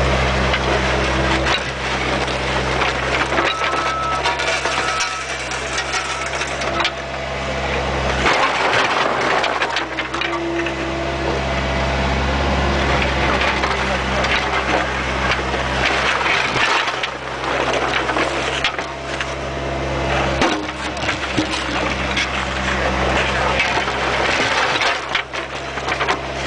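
Bobcat 430 mini excavator's diesel engine running under hydraulic load, its low note dropping and returning several times, with close, continuous crunching and scraping of the bucket digging into soil and debris.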